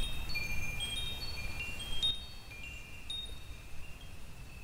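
Wind chimes ringing: high, bell-like notes struck at random and overlapping as they fade, over a low rumble, growing softer about halfway through.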